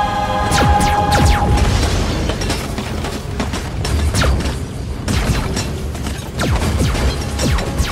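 Sci-fi battle soundtrack: a held music chord fades out in the first second or two, while rapid laser-gun shots, each a quick falling-pitch zap, fire over booming explosions and a heavy low rumble.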